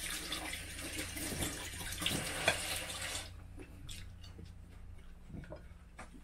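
Kitchen faucet running into a sink with a few clinks, shut off about three seconds in; only faint small clicks follow.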